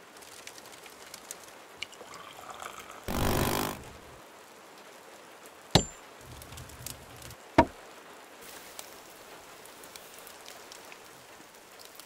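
Knife work on a stick of dry wood: a short rasping scrape about three seconds in, then two sharp knocks as the blade is worked into the wood, the first with a brief high ring.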